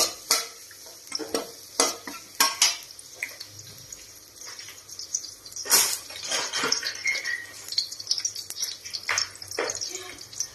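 Metal spatula scraping and clinking against an aluminium wok while stirring chopped food frying in oil, over a light steady sizzle. The sharp strikes come thick in the first few seconds, then thin out into intermittent scraping.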